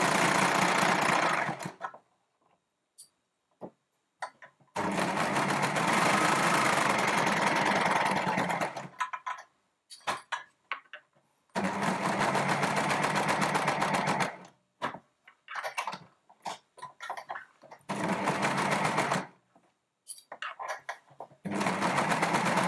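Brother four-thread overlocker (serger) stitching a seam in stretch jersey fabric. It runs in five short spells of a few seconds each, stopping between them. In the pauses there are small clicks and rustles of fabric being handled.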